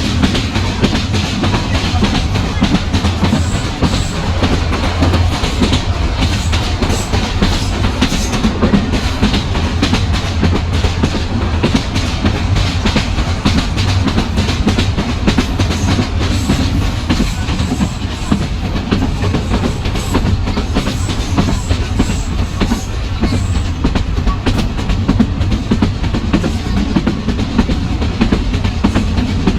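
Kishoreganj Express passenger train running on the rails: a loud, steady rumble with wheels clattering over the track.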